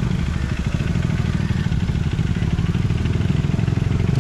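Stunt motorcycle's engine running steadily at fairly low revs, with a fast, even firing pulse and no sharp revving.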